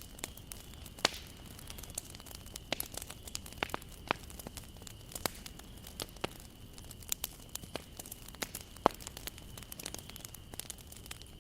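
Wood fire crackling: irregular sharp pops and snaps of burning wood over a steady low hiss of the flames, with the loudest snaps about a second in and again near the end.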